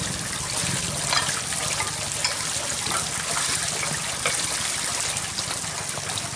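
Water trickling and running steadily, with a few light clinks of dishes and a pot being handled and rinsed.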